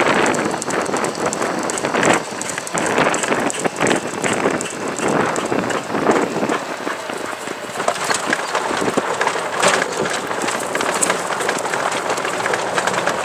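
Golf cart driving along: a steady crackling, rattling noise of tyres and wind, with scattered knocks.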